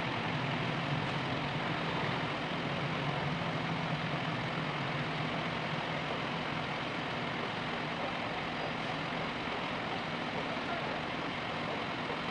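An engine idling steadily, with a low hum under a broad, even background noise.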